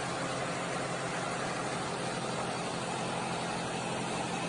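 Heavy vehicle engine running steadily, a constant noisy hum with no sudden knocks or bangs.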